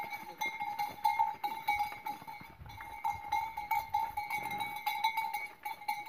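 A metal cowbell jangling continuously, its ring flickering as it swings, with scattered clicks and a few low thumps.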